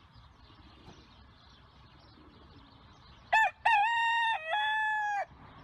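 Rooster crowing once, a cock-a-doodle-doo starting a little past halfway: a short opening note, then a long held call that steps down in pitch partway through before stopping.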